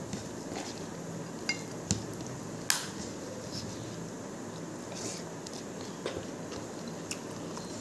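Fingers mixing and scooping rice with chicken chilli on a plate, with a few scattered sharp clicks and taps of the fingers against the plate, the loudest about two and a half seconds in.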